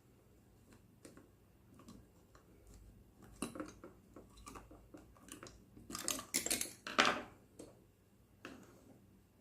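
Light clicks, taps and scrapes of hard plastic parts being handled as a hair dryer is taken apart. The louder clatters come about three and a half, six and seven seconds in.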